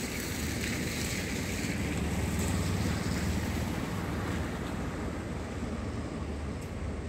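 Wind blowing hard at the seashore and buffeting the microphone: a steady rushing noise with a deep rumble that swells about two to three seconds in.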